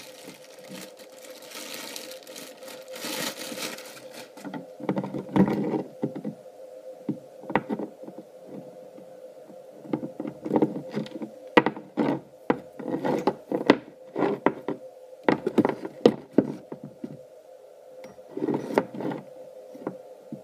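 Plastic bag crinkling as a small magnetic drive pump is unwrapped, then scattered knocks and rustles as the pump and its power cord are handled and set down on a wooden workbench, over a steady low hum.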